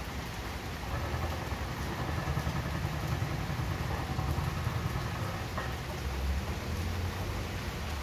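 Steady rain falling, with a low rumble underneath that swells about a second in and eases off a little before six seconds.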